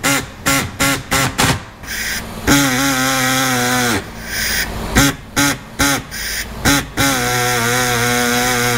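Pneumatic air saw cutting through a plastic gauge pod: a run of short buzzing bursts, about three a second, then a steady buzz for a second and a half, more short bursts, and a steady buzz again from about seven seconds in.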